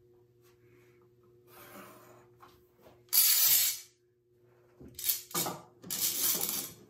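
Pine boards and a metal bar clamp handled on a wooden workbench: a loud scraping slide about three seconds in, then, after a short break, a run of scrapes and knocks as the clamp is brought across the boards.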